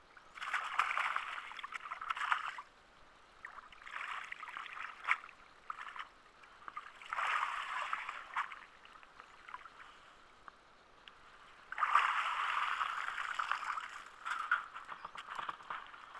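Wire-mesh fish keep basket full of caught fish being dunked and swished in pond water to rinse them, in four bouts of splashing and sloshing with short quiet gaps between.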